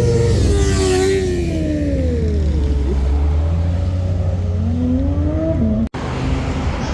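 A car engine revving as it drives off: its pitch falls over a couple of seconds, then climbs again. The sound cuts out for an instant about six seconds in.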